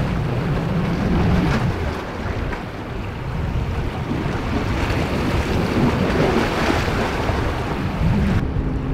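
Wind buffeting the microphone over choppy open water, with small waves washing.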